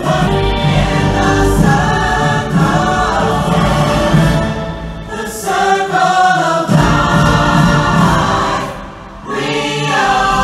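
Music for a water-and-light show, with a choir singing over a full musical backing. It softens briefly twice.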